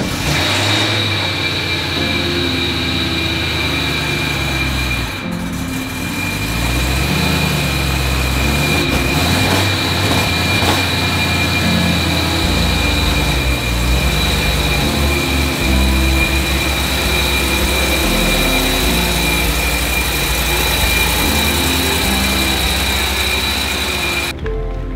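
A 2007 BMW E91 wagon built as an M3 starting up cold and settling into an idle, with a steady high whine over the engine note.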